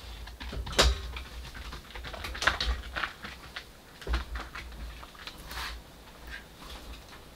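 Kindling and bark being handled at a small wood stove: irregular light clicks, snaps and knocks of sticks, loudest about a second in and around two and a half and four seconds.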